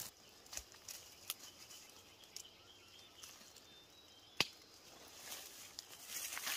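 Faint outdoor background with a few scattered light clicks, and one sharp knock about four and a half seconds in.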